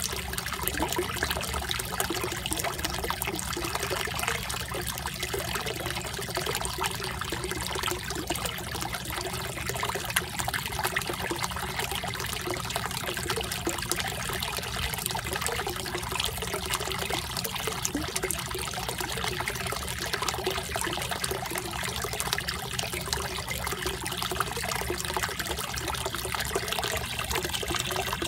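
Water bubbling and trickling steadily at a submerged pond pump's fountain outlet, where it breaks the surface.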